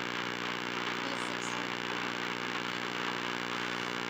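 Steady, unchanging drone with a buzzy pitched tone.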